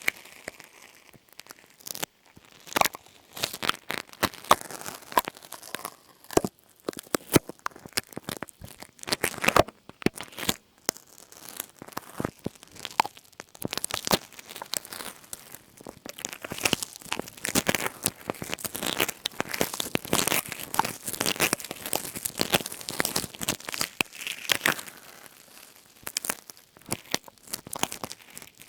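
Close-miked crinkling and crackling from something being handled for ASMR: a dense, irregular stream of sharp little clicks and crackles with no talking.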